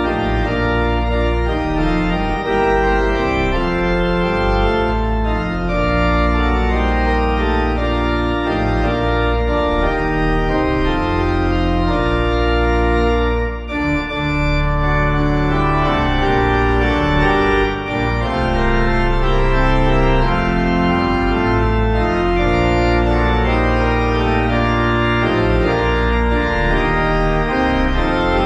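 Organ music closing the service, a postlude of sustained chords over long-held bass notes, briefly dipping about halfway through.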